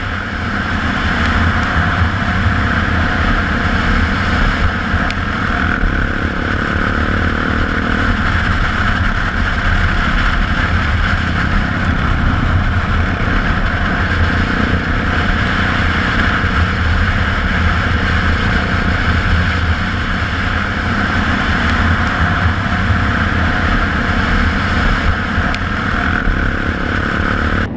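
KTM 690 SMC R's single-cylinder engine running steadily at an even speed, with a strong low hum and no revving.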